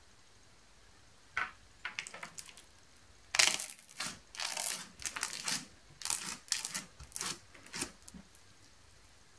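Sticky glitter slime being pressed by hand onto a wire cooling rack, giving a run of short crackles and squelches as it squeezes into the grid. It starts about a second and a half in and grows busier from about three and a half seconds, where the loudest crackle falls.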